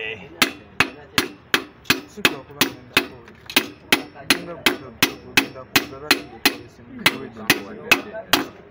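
Metal hammer striking the crown of a diesel engine piston set in its cylinder bore: a steady run of sharp blows, about two and a half a second, with two brief pauses.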